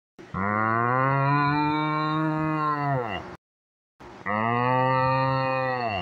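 A person imitating a cow with a deepened voice, a "Muhhh!" made with the tongue clenched and the mouth barely open. There are two long moos of about three seconds each, each sliding down in pitch as it ends, with a silent gap between them.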